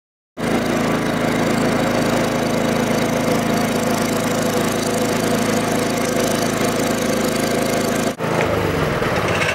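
Small petrol engine running steadily at constant speed, driving the demo machinery. About eight seconds in the sound breaks for an instant and the engine note then falls.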